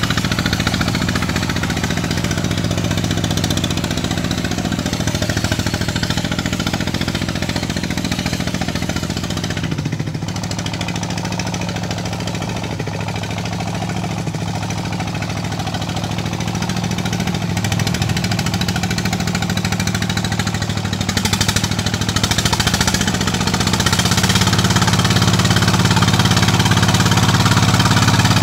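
Two-wheel walking tractor with steel cage wheels tilling a flooded rice paddy, its single-cylinder diesel engine running steadily under load. It grows louder over the last few seconds as the tractor comes close.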